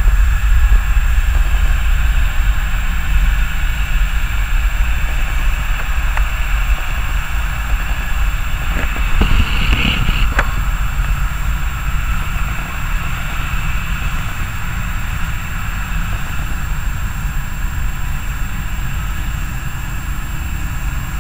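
Boeing 737-800's CFM56 jet engines at takeoff power: a steady, heavy roar with a deep rumble that slowly fades as the airliner moves away.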